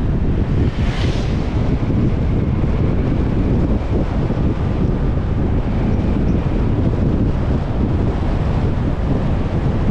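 Heavy wind buffeting the microphone of a moving scooter, a steady low rumbling rush, with a brief hiss about a second in.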